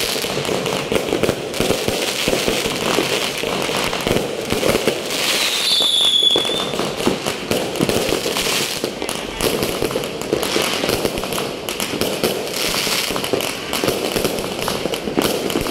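Aerial fireworks bursting overhead at close range: a dense, continuous run of bangs and crackling. A short, high whistle that dips slightly in pitch sounds about six seconds in.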